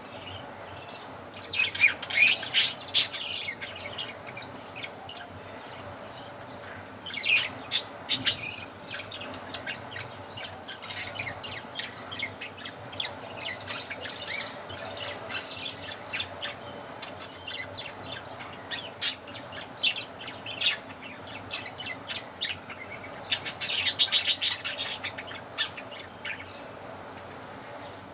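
Pet budgerigars chirping and squawking in quick bursts, with the loudest flurries about two seconds in, around seven to eight seconds in, and near the end. A faint steady hum runs underneath.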